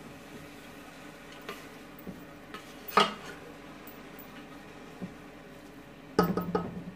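A spatula stirring chopped mustard greens in a metal stockpot: scattered light clicks, one sharp knock against the pot about three seconds in, and a quick run of knocks near the end.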